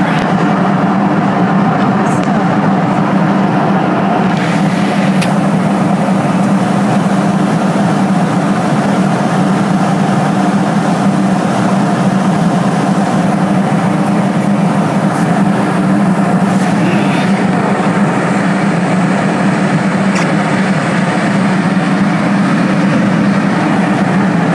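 Airliner cabin noise in flight: the steady, unbroken drone of the engines and rushing air heard from inside the cabin.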